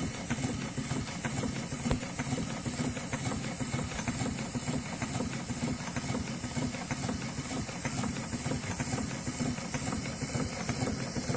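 Scale-model reversing steel-mill steam engine running steadily, with an even hiss over a fast, regular beat.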